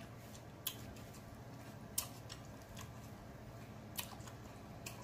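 A man chewing a mouthful of fried chicken sandwich, quiet with a few sharp wet mouth smacks, about four in all, over a low steady hum.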